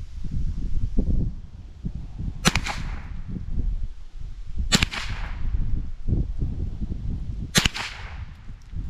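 Three shots from a Mossberg 702 Plinkster semi-automatic .22 LR rifle, about two to three seconds apart. Each is a sharp crack with a short ringing tail.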